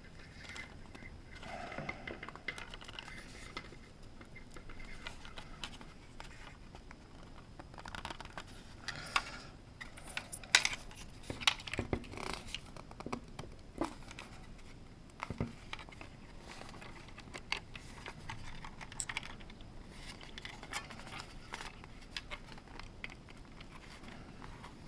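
Small clicks, taps and scrapes of a circuit board and the charger's plastic case being handled and pressed into place, scattered irregularly and busiest around the middle.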